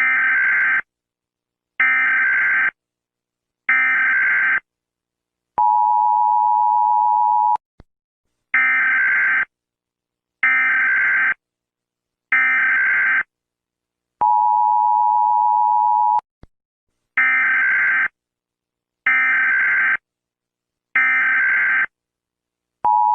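Emergency Alert System tones: three short warbling SAME header data bursts, each about a second long, followed by a two-second steady two-tone attention signal. The sequence repeats three times, the last attention tone starting near the end.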